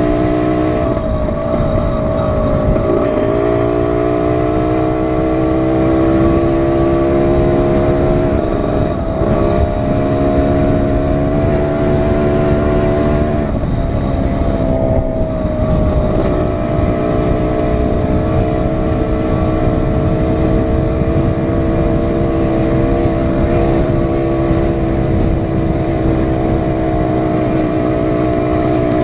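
Dirt bike engine running while riding along a dirt trail, pitch holding mostly steady with brief dips and changes a few times as the throttle is eased and reapplied. Wind rumble on the microphone underneath.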